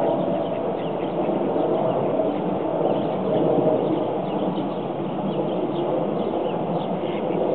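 Steady outdoor background rumble, with many short, faint bird chirps scattered over it.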